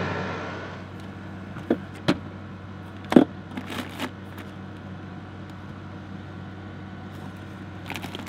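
Plastic food packaging and containers being handled inside an open portable fridge: a few sharp clicks and crinkles, the loudest about three seconds in. Under it runs the steady hum of a small air conditioner cooling the truck camper.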